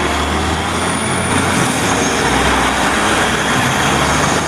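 Steady heavy truck engine noise with a low hum, cutting off abruptly near the end.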